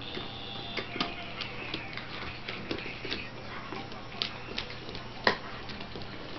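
Greyhound gnawing a compressed rawhide chew stick: irregular crunching clicks a few times a second, with one sharper crack about five seconds in.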